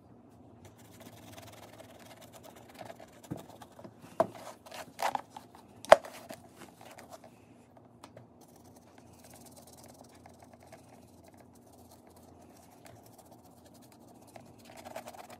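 Paintbrush dry-brushing and dabbing paint on a surface: faint scratching strokes, with a few sharp taps a little past the middle, the loudest about six seconds in.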